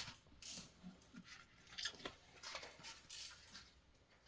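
Near silence: room tone with a few faint short rustles and small ticks.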